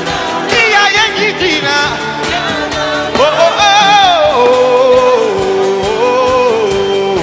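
Live gospel worship music: a slow melody with vibrato, gliding between long held notes over sustained chords.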